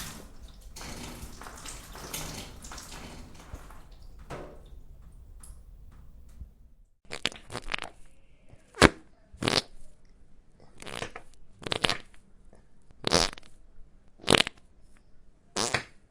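Fart sound effects: one long, rough, sputtering fart lasting about seven seconds, then a string of about eight short separate farts roughly a second apart.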